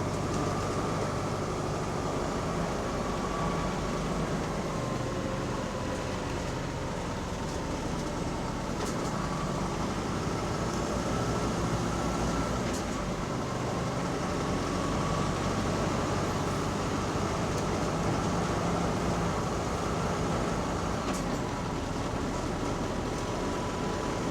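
Double-decker bus heard from inside the passenger saloon: steady engine and road noise, with a faint whine that wavers slowly in pitch.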